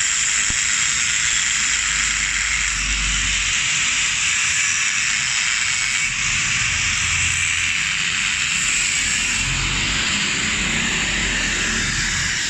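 Handheld angle grinder cutting steel with an abrasive disc, running steadily with a high, even hiss.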